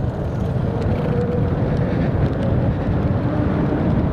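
Wind rushing over a helmet microphone while riding an electric dirt bike at speed. A faint, thin motor whine sits under the wind rumble and rises slightly in pitch.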